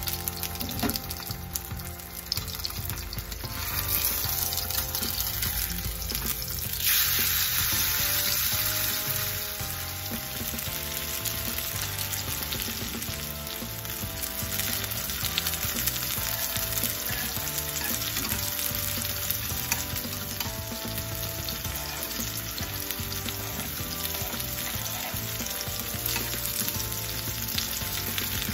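Pork steak sizzling as it sears in hot oil in a frying pan, growing louder about four seconds in and loudest around seven seconds.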